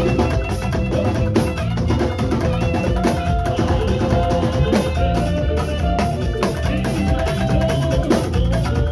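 Live Yoruba bata drumming with a saxophone playing a melody over the drums. The sax holds notes and steps between them while the drums keep a busy rhythm.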